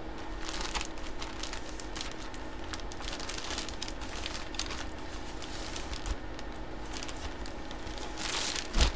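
Clear plastic bag around a packaged jersey crinkling as hands spread and flatten it, in scattered small crackles. A louder rustle comes near the end.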